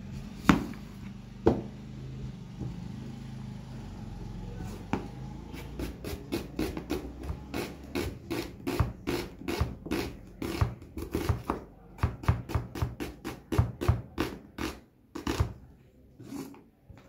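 Kitchen knife slicing on a cutting board: two single knocks, then a long run of quick, even strokes, about four a second, for some ten seconds. A low hum lies under the first half.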